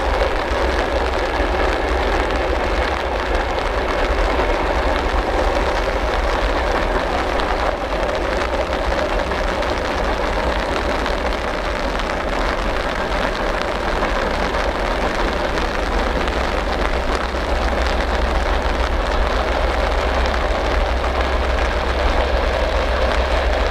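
Steady rain hiss mixed with the constant low rumble of a 2M62U two-stroke diesel locomotive hauling a train of empty gondola cars.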